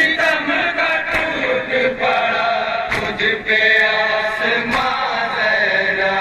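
A group of men chanting a Shia noha (lament) in chorus, the melody held in long sung lines. Several sharp slaps break through at uneven intervals, the hand strikes of matam (chest-beating).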